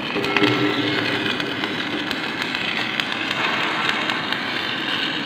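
Shielded metal arc (stick) welding with a 4 mm 309 stainless-steel electrode: a steady crackling hiss from the burning arc.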